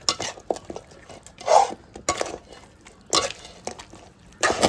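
A spoon stirring and scraping chicken devil in a cooking pan: irregular scrapes and clinks of utensil on pan, the loudest about a second and a half in and another near the end.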